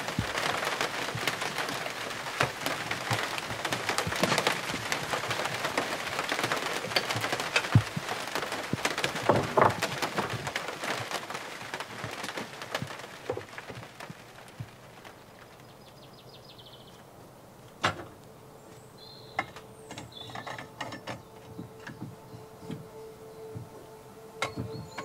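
Rain falling on a clear corrugated plastic roof: a dense hiss of fine drop ticks that eases off about ten seconds in. After that it is quieter, with a few bird chirps and a steady tone that comes in past the middle.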